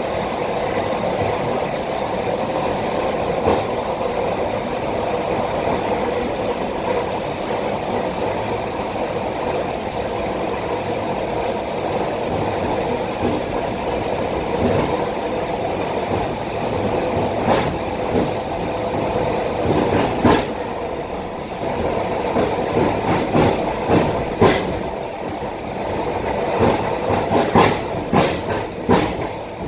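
Running noise of an ET2M electric multiple unit at speed, heard from inside the passenger car: a steady rumble and hum. In the second half, wheels clack over rail joints in irregular clusters.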